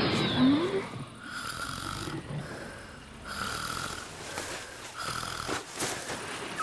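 Cartoon snoring from a sleeping girl: a series of snores about a second apart. The first and loudest has a short rising whistle in it.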